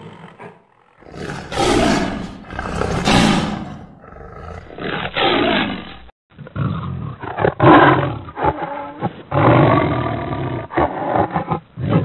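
Saber-toothed cat creature sound effect: big-cat roars and snarls. Two long roars start about a second in, then a run of shorter, duller growling roars follows, broken by a brief gap about six seconds in.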